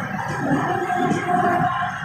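A moving train heard from on board. A howling whine holds steady pitches over the rumble of the wheelsets on the rails.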